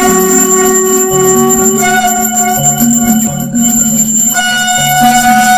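Temple bell ringing, its long bright overtones fading and coming back strongly about four and a half seconds in, over background music with a low stepping melody.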